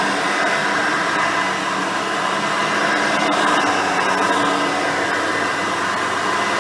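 Hoover Elite 350 upright vacuum, with a rebuilt 5-amp motor and 7-blade fan, running steadily with a high whine over its airflow noise.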